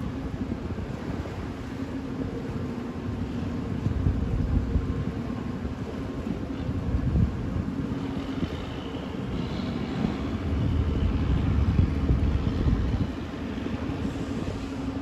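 Tugboat diesel engine running steadily with a low hum, with wind gusting on the microphone.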